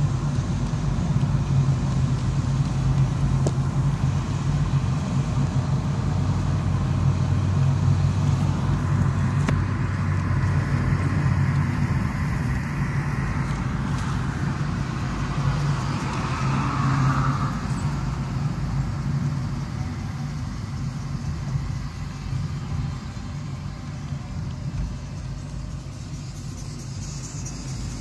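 A car's engine and road noise heard from inside the cabin while driving: a steady low hum that gets quieter over the second half.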